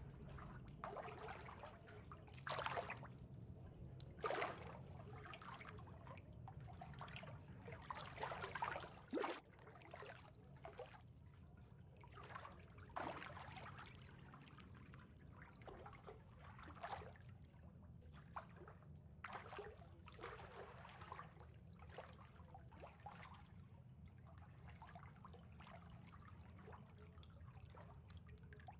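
Faint water trickling and lapping, with irregular small splashes and gurgles over a steady low hum.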